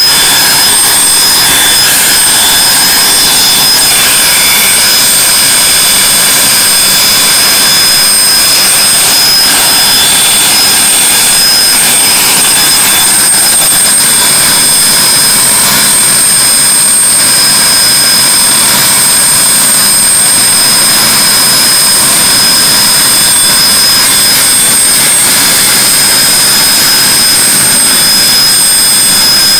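Turbine whine of an HAL Chetak (licence-built Alouette III) helicopter's Artouste turboshaft engine, running on the ground with the main rotor turning. Steady and loud, with high-pitched whine tones held over a rushing noise.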